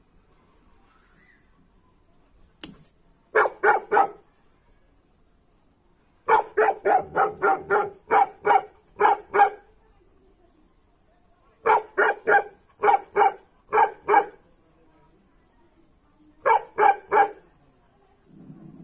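Tibetan mastiff barking aggressively in rapid runs of deep barks: a short burst of three, a long run of about eleven, then about seven, and three more near the end, with pauses between.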